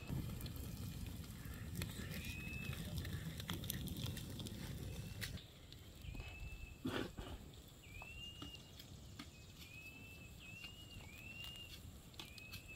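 A bird calling in a run of short arching chirps, one about every half second through the second half, with scattered clicks and one sharper knock. A low rumble, like wind on the microphone, drops away about five seconds in.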